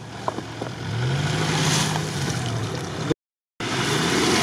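Off-road 4x4's engine revving up and falling back twice as it works through deep mud and water, over a steady churning noise. The sound drops out completely for a moment about three seconds in.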